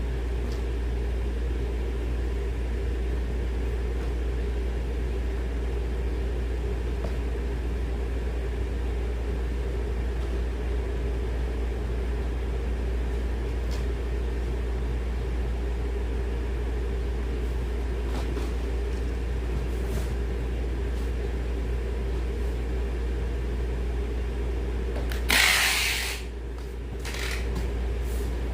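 Steady low machine drone with a few faint clicks, broken about 25 seconds in by one loud, brief scraping rasp.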